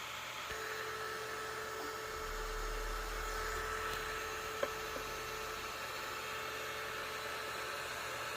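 A steady hum with a faint high tone running through it, and a single sharp click about halfway through.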